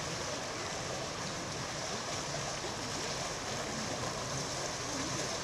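Steady rush of water from a boat under way, an even, unbroken noise.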